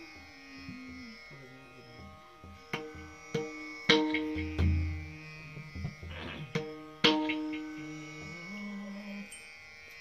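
Instrumental passage of a Marathi bhajan: a sustained drone chord with a slow melody line, while the pakhawaj drum plays a few sharp strokes and a deep bass stroke through the middle.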